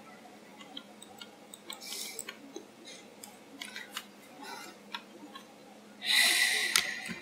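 Faint, scattered computer mouse clicks over quiet room noise. About six seconds in there is a louder hiss close to the microphone, lasting about a second.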